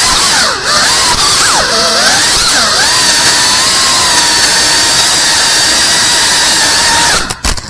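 Cinewhoop FPV drone's brushless motors and ducted propellers whining, the pitch swooping up and down with the throttle for the first few seconds, then holding a steady high whine. The sound breaks up and cuts out near the end.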